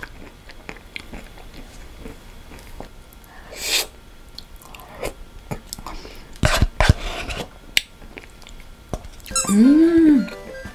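Close-miked eating of ice cream: spoon taps and scrapes, with wet mouth and chewing sounds, and a loud cluster of smacking about six and a half seconds in. Near the end comes a short hum that rises and falls.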